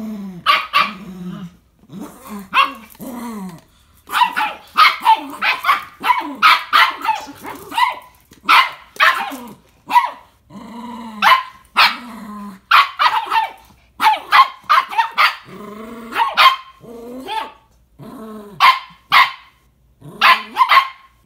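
Small dogs barking and growling during a play tug-of-war over a sock toy. The barks come in quick runs, several a second at times.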